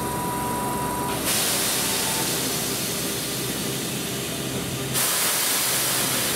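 Compressed air hissing from a Keihan electric commuter train standing at the platform, as its pneumatic brakes or door gear vent air. The hiss starts suddenly about a second in, and a second, louder burst comes about five seconds in.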